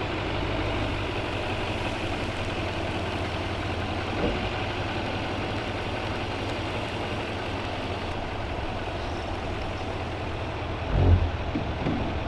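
Diesel pickup truck engine running at a steady idle-level speed while it tows a shed over rough ground, with a single low bump about eleven seconds in.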